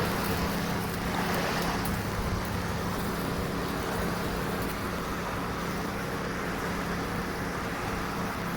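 Greenworks Pro 80V battery-powered lawn mower running while cutting grass: a steady motor and blade hum over a constant rushing noise.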